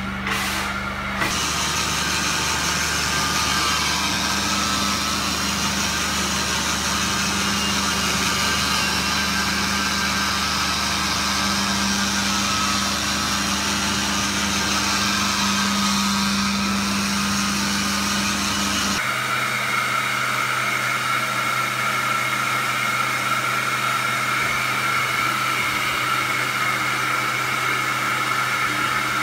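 Carpet-cleaning hot-water extraction equipment running steadily: a motor drone with a hiss of suction. About two-thirds of the way through the sound changes abruptly, the deepest hum dropping away and a higher steady whine coming in.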